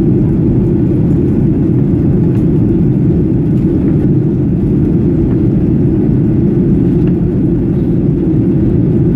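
Boeing 737 passenger cabin noise: the engines and the airflow over the fuselage, heard from a window seat, make a steady, low-pitched rush with no change in level.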